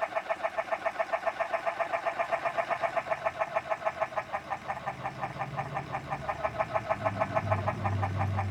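Chatter Duck remote-controlled duck decoy running its mechanical chatter call: a rapid, even clatter of about six or seven pulses a second, imitating ducks chattering on the water. A low hum joins in the second half, growing louder about seven seconds in.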